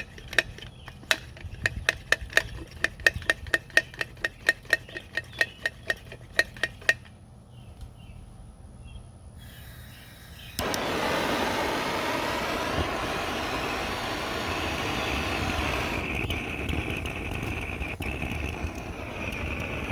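Vintage gasoline blow torch lamp: a rapid run of metallic clicks, about three to four a second, for roughly seven seconds as its hand pump is worked to pressurize the tank. After a pause the burner comes on abruptly, about ten seconds in, with a loud steady rushing noise that gains a high steady tone partway through.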